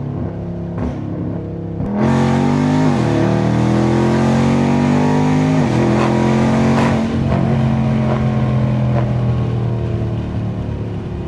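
Tuned, catless 6.4-litre 392 HEMI V8 of a Dodge Scat Pack: running lightly, then about two seconds in it goes to full throttle, the engine pitch climbing with two quick upshifts, then holding high and easing off near the end.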